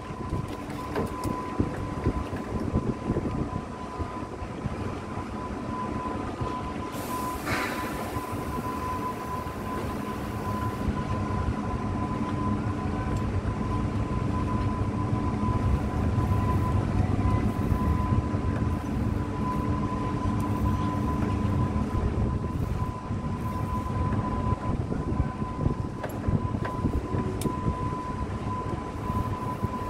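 Heavy marine diesel engines running steadily with a low rumble and a constant thin whine, swelling somewhat louder partway through. A brief hiss of noise comes in about seven seconds in.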